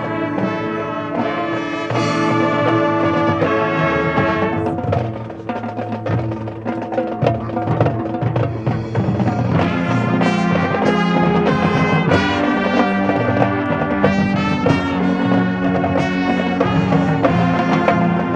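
A high school marching band of brass and percussion plays its field show. Held brass chords open the passage, the music drops briefly about five seconds in, and it then builds into a louder, busier section punctuated by drum and timpani hits.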